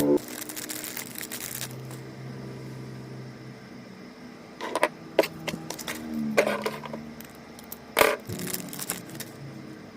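Crackling and sharp clicks from toys and packaging being handled: a burst of crackle at the start, then a few separate clicks and knocks.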